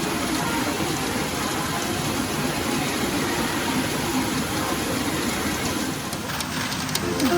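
Steady, rain-like clatter of many steel pachinko balls streaming through a pachinko machine, with sharp clicks from about six seconds in.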